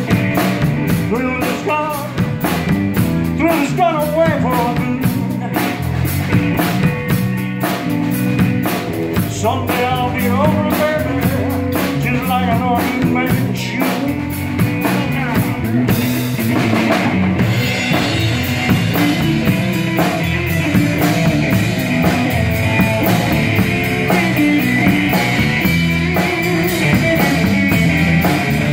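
Live blues band playing a slow minor-key blues: electric lead guitar with bending notes over electric bass and a drum kit.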